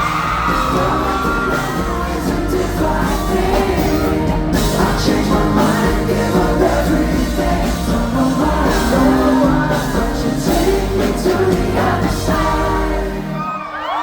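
Live pop band playing amplified music with singing, and a concert crowd singing and yelling along. The bass drops out near the end.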